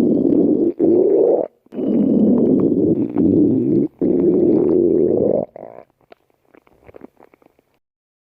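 Stomach growling loudly in long gurgling rumbles, four stretches broken by brief pauses, then trailing off into a few small faint gurgles.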